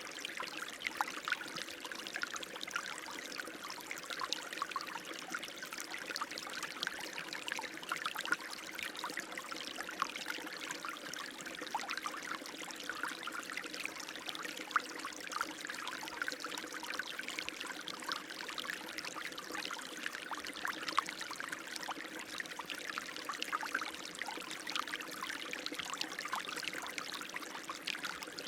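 Running water, flowing and splashing steadily with many small trickling splashes.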